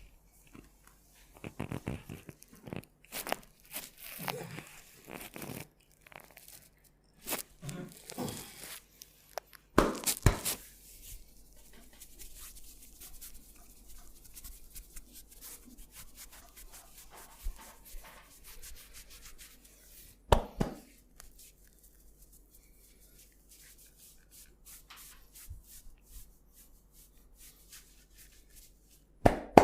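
Hands rubbing and scratching through hair and over the scalp and ears during a head massage: irregular rustling friction strokes, busier in the first half, with a few short sharp louder hits about ten and twenty seconds in and again at the very end.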